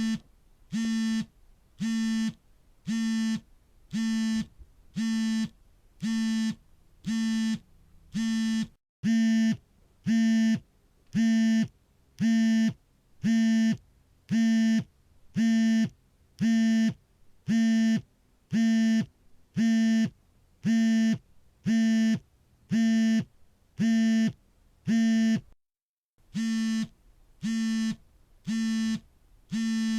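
Mobile phone on vibrate, buzzing in an even run of short pulses: a low buzz about half a second long, roughly once a second. The run breaks off briefly twice, about nine seconds in and near the end.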